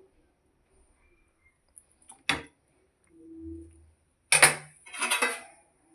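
Serving spoon clinking and scraping against a pan and plate as the curry is dished out: one sharp clink about two seconds in, then a longer run of scrapes and clinks a little past four seconds.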